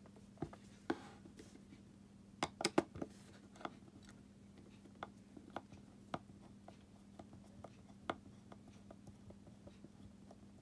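Small scattered clicks and taps of a screwdriver tip and the plastic shell of a Fiat 500 flip-key fob as a tiny screw in the fob is undone, with a quick run of several clicks about two and a half seconds in.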